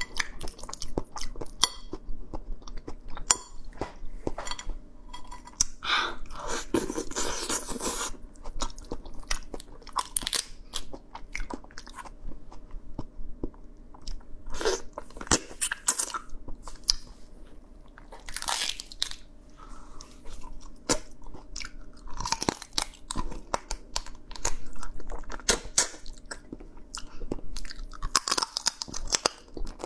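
Close-up eating sounds of a cooked crab being eaten by hand: shell crunching and cracking between the teeth and the meat being chewed, in irregular bites throughout.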